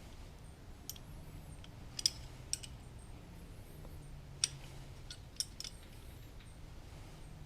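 Scattered light metallic clicks and clinks, about seven in all, from small metal parts and tools being handled, over a faint steady low hum.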